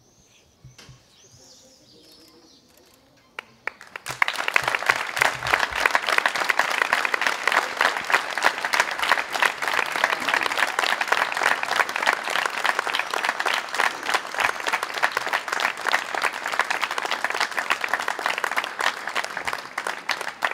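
A small crowd applauding, breaking out about four seconds in after a quiet start and going on steadily as dense hand-clapping.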